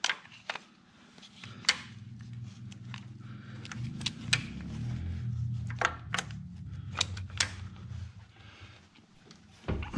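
Scattered sharp metallic clicks and clinks of a BMW N62 V8's timing chain and sprocket being handled and fitted by hand, about ten in all, over a low steady hum.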